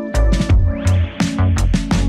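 Electronic background music with a heavy bass line and sharp, frequent drum hits.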